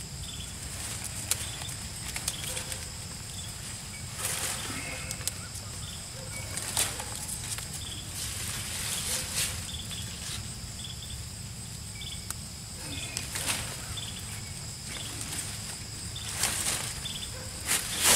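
Pea vines rustling and crackling in irregular bursts as black-eyed pea pods are pulled off by hand, the loudest near the end. Under it runs a steady high-pitched insect drone.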